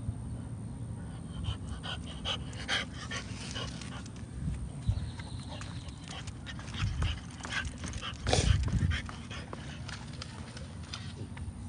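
French bulldog sniffing at plants and grass: runs of short, quick sniffs and snuffles through its nose, loudest about eight and a half seconds in.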